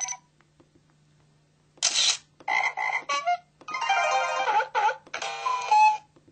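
LG-SD370 mobile phone playing its built-in sound effects through its speaker. After a short silence comes a quick run of short electronic jingles and chirps, some of them gliding in pitch, with brief gaps between them.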